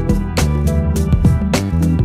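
Instrumental background music with a steady drum beat over a sustained bass line.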